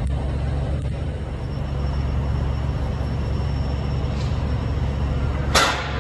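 Steady low machine hum, with a sudden loud clattering bang about five and a half seconds in.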